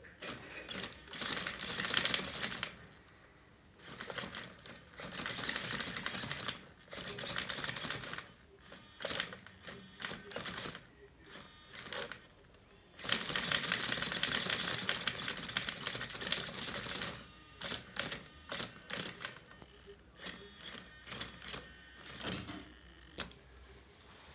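High-speed steering servo on an HPI Savage Flux RC truck whirring and chattering in repeated quick bursts as the steering is swung back and forth from the transmitter. The bursts run from a fraction of a second to a few seconds, with short quiet gaps, and come in a string of quick short ones near the end.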